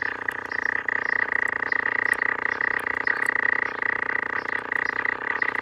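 Guild AA5 tube radio's speaker putting out a steady, harsh buzzing tone with a strong high whine: a faulty set, its symptom likened to an instrument for a punk noise band.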